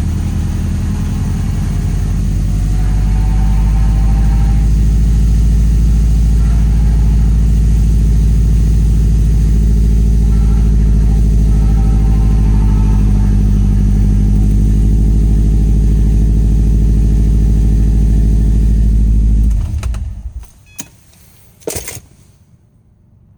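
2011 Subaru WRX's turbocharged flat-four idling with the noise of a bad clutch throwout bearing. The engine shuts off near the end, followed by a few sharp clicks.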